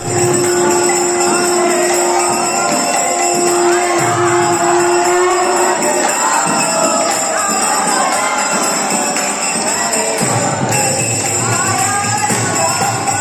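Conch shell (shankh) blown in two long, steady, even-pitched blasts of about two and a half seconds each, the temple's signal that worship is beginning. The blasts are followed by jingling bells and voices of the crowd in the hall.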